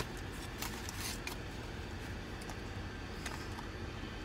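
Faint rustling and a few light clicks of food wrapping and containers being handled, over a steady low rumble of a car cabin.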